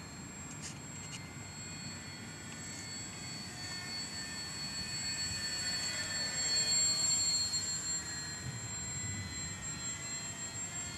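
RC model Monocoupe 90A parkflyer's electric motor and propeller whining in flight, growing louder as the model passes close overhead about six to seven seconds in, the pitch dipping slightly as it moves away. A low rumble of wind on the microphone lies underneath.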